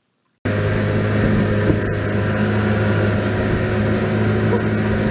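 An engine running steadily with a constant low hum under a broad rushing noise, starting abruptly about half a second in.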